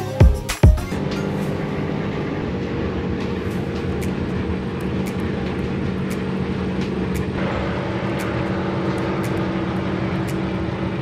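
Jeanneau Merry Fisher 895's outboard engine running at cruising speed under way, a steady drone mixed with the rush of water and wind past the hull. Two heavy thumps come near the start, and the engine note shifts slightly about seven seconds in.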